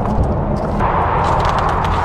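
Footsteps crunching on gravel over a loud, steady low rumble, with a steady hum that jumps higher in pitch just under a second in.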